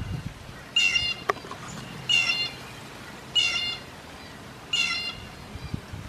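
Yellow-bellied sapsucker giving its nasal, cat-like mewing call four times, evenly spaced about a second and a quarter apart.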